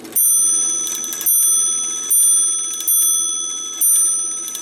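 Strike train of a modified OG clock movement striking on its bell: five evenly spaced blows, a little under a second apart, each ringing out and slowly dying away.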